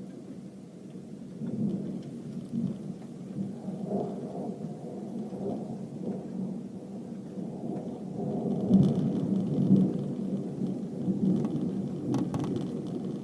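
Thunder rolling and rumbling over steady heavy rain, swelling loudest about nine to ten seconds in.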